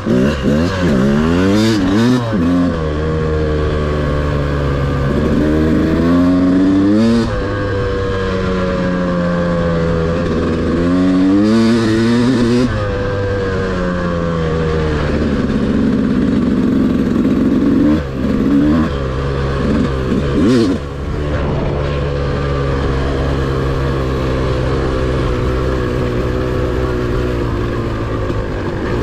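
Yamaha dirt bike engine being ridden, revving up and dropping back again and again as the rider accelerates and shifts gear, then running more evenly in the second half. A few short knocks come through along the way.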